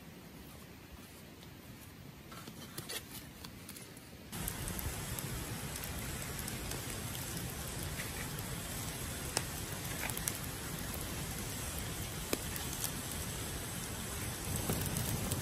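Large clams grilling in their half-shells on a wire mesh over charcoal: a steady sizzling hiss with occasional sharp crackles, starting about four seconds in after a quieter stretch.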